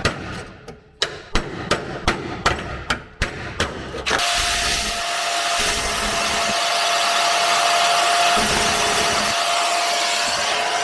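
Hammer blows on a cold chisel cutting through a rusted steel seat-mount lip on a car floor pan, about three sharp metallic strikes a second for the first four seconds. Then a power tool starts and runs steadily with a high whine, and cuts off suddenly at the end.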